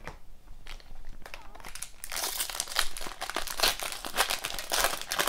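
Foil trading-card pack wrapper being torn open and crinkled by hand: a few light clicks at first, then dense crackling from about two seconds in.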